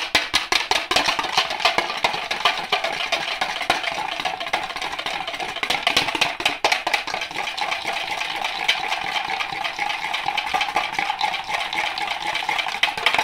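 Wire whisk beating a single egg yolk in a plastic bowl: a steady run of rapid clicking, scraping strokes against the bowl.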